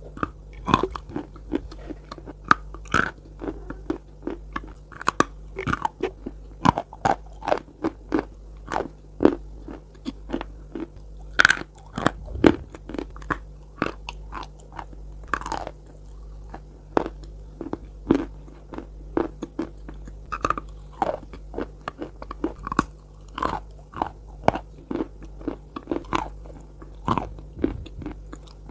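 Bites and chewing of pieces of Bogorodsky chalk coated in paste, recorded close for ASMR: repeated sharp crunches, irregular at about one to two a second, with softer chewing between, over a steady low hum.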